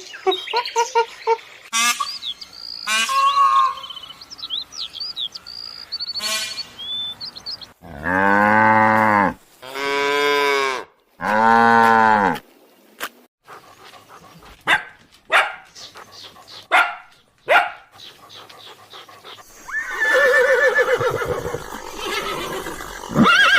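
Assorted domestic animal calls one after another: high chirps early on, a cow mooing three long times in the middle, then a few sharp clicks and a rough call near the end.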